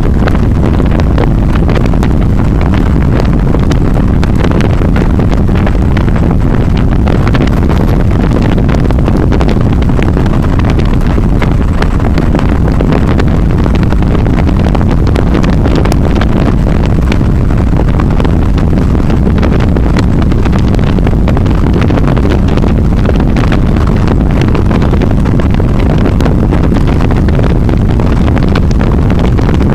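Golden Wolf 150 motorcycle engine running steadily under way, with heavy wind noise rushing over the camera microphone.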